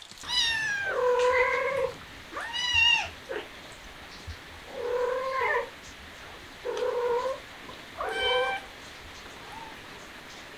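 Cat meowing five times, drawn-out meows a second or two apart, the first one the longest.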